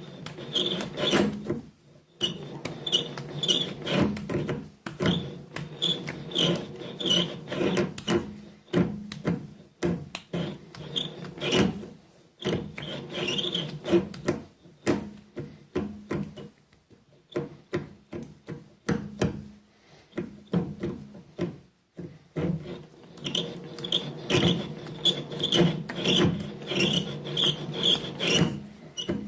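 Lathe cutting tool scraping across a cast iron pulley as the chuck of a Holbrook C8 metal lathe is turned by hand: repeated rasping strokes in an uneven rhythm, with a few short pauses.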